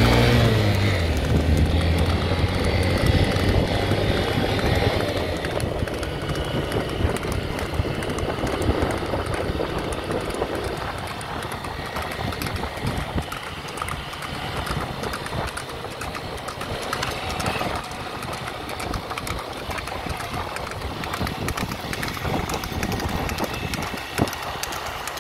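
Motor scooter riding along a road: its engine hum is clear in the first few seconds, then sinks under steady wind buffeting and road noise. One knock near the end.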